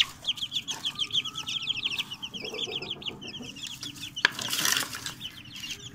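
A brood of young chicks peeping continuously, many quick high cheeps overlapping. A single sharp knock about four seconds in, followed by a brief rustle.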